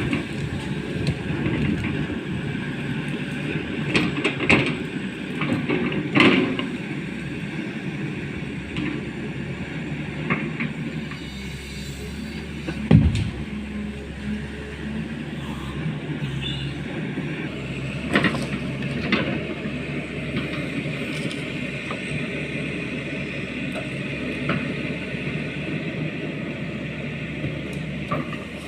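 Pindad hydraulic excavator's diesel engine running steadily as it works, with scattered knocks and clanks; the loudest is a heavy thump about halfway through.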